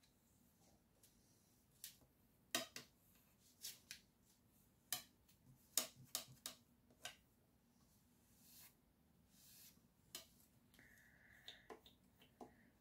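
Bone folder pressed and drawn over a card panel to stick down the freshly glued paper: quiet, scattered clicks and taps with a couple of brief scrapes about two thirds of the way through.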